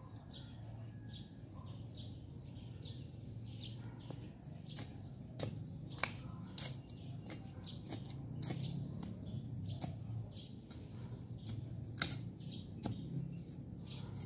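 A hand tool striking and scraping into stony garden soil, sharp irregular knocks about once a second, with faint bird chirps.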